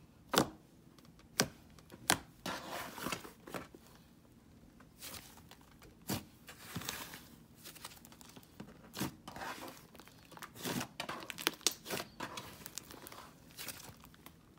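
Thick butter slime being poked, squeezed and stretched by hand: three sharp clicks in the first two seconds, then irregular crackling and squishing as it is worked.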